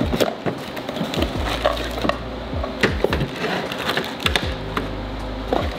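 Cardboard gauge box and its packaged parts being handled: flaps opened, contents pulled out and set down on a table, giving a string of short crinkles, clicks and knocks. Background music with a deep bass beat runs underneath.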